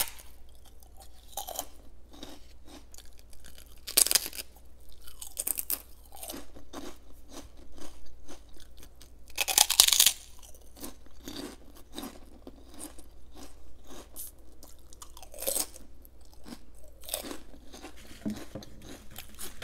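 Close-miked biting and chewing of crisp, puffed homemade prawn crackers: a run of sharp crunches, with big bites about four seconds in, near ten seconds (the loudest) and around fifteen seconds.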